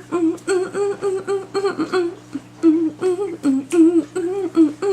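A high voice humming a bouncy, wordless tune in short notes, about three a second.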